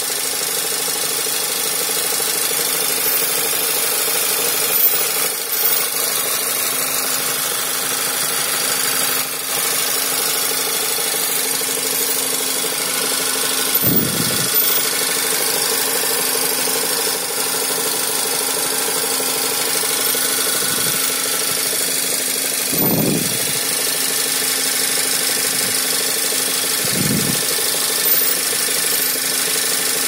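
Skoda Superb II's 1.8 TSI (CDAA) turbocharged four-cylinder petrol engine idling, heard close up at the alternator and accessory belt as a steady hum with a held whine over a constant hiss. A few dull thumps come in briefly. The owner calls it a strange sound whose cause he has not found.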